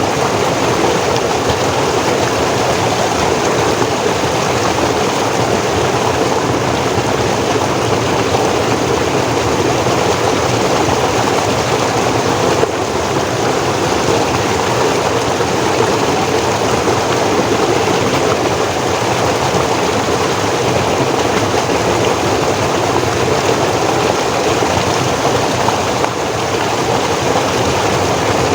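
Forest stream flowing, a steady rushing of water over rocks.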